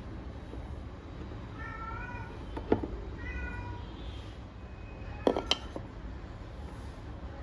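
Domestic cat meowing, two or three short meows in the first half, with a sharp knock about a third of the way in and a quick double knock later.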